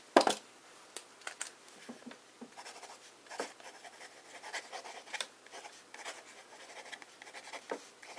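Fountain pen nib scratching lightly across copier paper in short, irregular strokes as a line of cursive is written. A single sharp tap comes right at the start.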